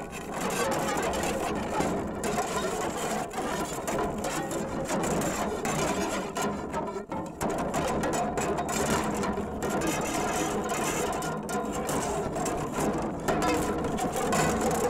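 Amplified scraping and rattling from the Electro Tumbleweed, an invented instrument made of seven carbon fiber rods on a 3D-printed PLA core. It makes a dense, continuous noisy texture, with a brief drop about seven seconds in.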